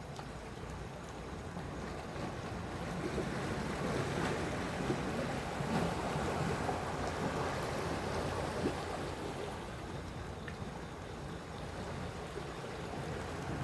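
Sea waves washing in. The sound swells over a few seconds and then eases back.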